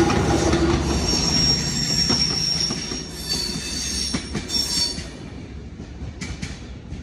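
Passing train with its wheels squealing high on the rails, over a heavy rumble. Both die away after about five seconds, leaving a few sharp clicks near the end.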